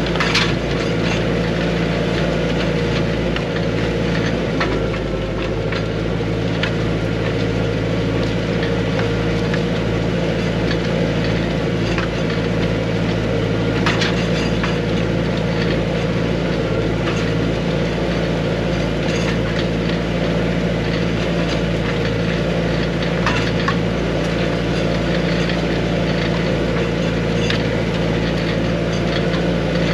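Arbos 3055 tractor's diesel engine running steadily under load while pulling a disc harrow, heard from inside the cab. A few sharp clicks or knocks stand out over it, near the start, about halfway through and about two-thirds through.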